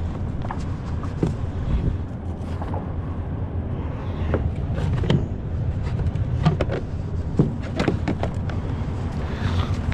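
Steady low rumble with wind buffeting the microphone, and scattered sharp clicks and knocks, the loudest about seven and a half seconds in.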